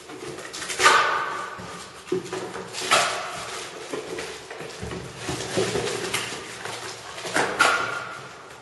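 Plastic bag and cardboard packaging rustling and scraping as a boxed speaker set is handled, with three loud sharp sounds: about a second in, about three seconds in, and near the end.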